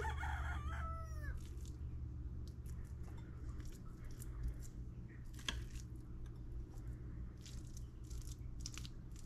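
A puppy gives a short, high whine about a second in, followed by a metal spoon clinking and scraping against the food bowls several times, over a low steady hum.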